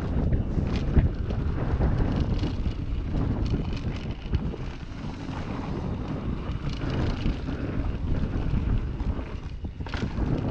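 Wind buffeting the microphone of a camera on a mountain bike rolling fast down a dirt trail, over a low rumble from the tyres with occasional clicks and knocks from the bike.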